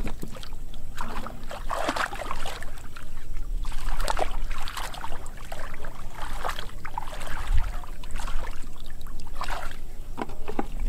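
Shallow muddy water splashing and sloshing in irregular bursts as a person wades and gropes through it with his hands and legs.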